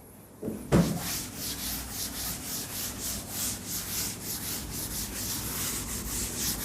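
Rubbing or scraping strokes repeated a few times a second, over a faint low hum, with a short knock just under a second in.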